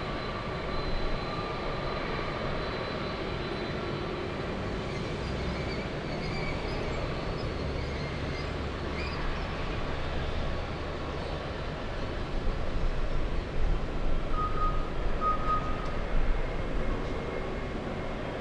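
Jet engines of a twin-engine widebody airliner running at taxi power, a steady rumble that grows louder and more uneven in the last few seconds. Two short beeps come in near the end.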